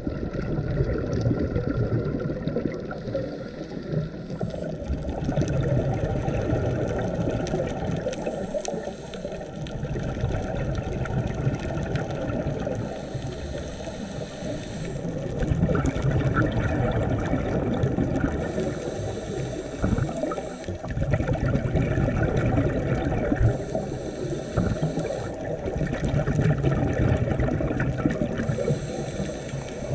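Scuba diver breathing through a regulator, heard underwater. Gurgling bubbles on each exhale alternate with a brief hiss on each inhale, in a cycle of about five seconds.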